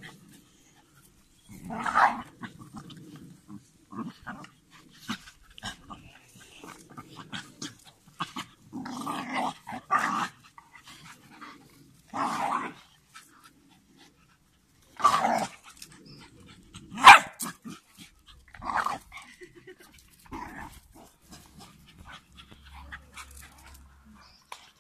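Dogs growling in play while wrestling, broken by about half a dozen short, loud barks.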